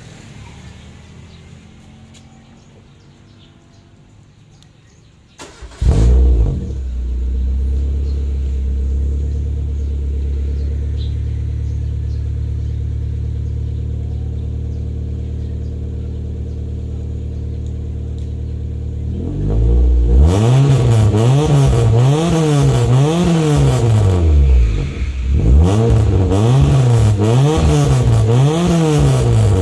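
Ford Lynx 1.6-litre four-cylinder engine breathing through a Greddy chambered muffler: it cranks and catches about six seconds in, then idles steadily. From about two-thirds of the way in it is revved up and down repeatedly in quick blips, with a short pause between two sets.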